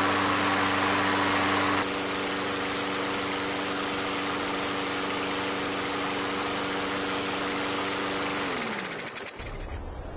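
Briggs & Stratton single-cylinder lawnmower engine running at a steady speed while it burns off a dose of Sea Foam top engine cleaner sprayed into its air intake. It is shut off about nine seconds in and spins down to a stop.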